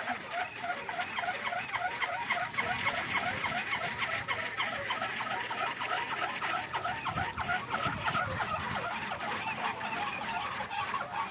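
Wooden kolecer (wind propeller) spinning in strong wind, giving a rapid, rhythmic squeaking whir of several beats a second. A low rumble of wind on the microphone swells about seven seconds in.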